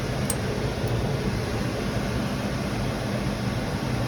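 Steady mechanical hum with a rush of air, like running air-conditioning or fan equipment, with a faint tick about a third of a second in.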